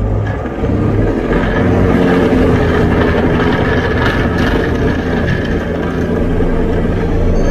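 Diamond DA40's single piston engine and propeller heard from the cockpit, rising to power about a second in and then running steadily at high power as the plane rolls down the runway for a touch-and-go.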